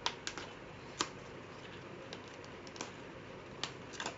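Scattered light clicks and taps, about six at irregular intervals, from handling a plastic bottle and a charger cable while the cable is pushed through the bottle.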